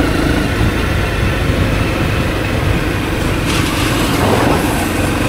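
Honda CRF250L's single-cylinder engine running steadily, with a hiss that grows louder about three and a half seconds in.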